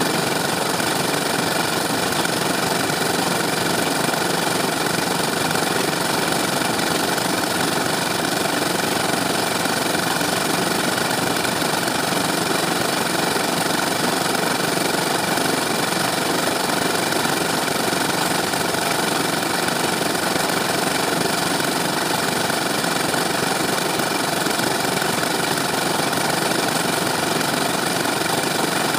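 Small stationary engine of a belt-driven concrete mixer running steadily at a constant speed.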